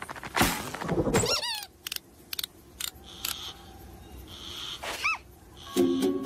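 Cartoon sound effects and a lizard character's squeaky voice. A noisy rush about half a second in is followed by a short wobbly squeal, a few clicks and short hissy sounds, and a rising-and-falling squeak near five seconds. Music starts near the end.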